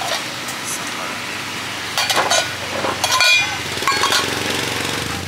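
Busy street traffic noise, with a motor vehicle engine humming past near the end. Over it come a few light metal clinks as metal saucer lids are set on small bowls on a stainless steel counter.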